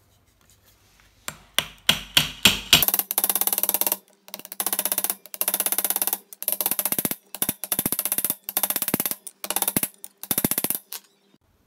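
Hammer blows on a wood-scaled knife handle laid on a steel bench-vise anvil: a few single strikes, then quick runs of rapid tapping, each about a second long with short pauses between.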